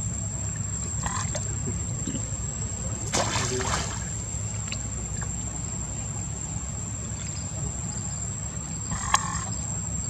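Water splashing and lapping as a macaque swims with her baby on her back, over a steady low rumble. A louder splash comes about three seconds in and a sharp click near the end.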